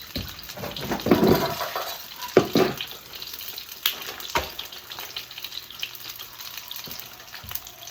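Potstickers frying in hot oil in a pan, sizzling and popping, louder about a second in, with a few sharp knocks of a utensil or lid on the pan.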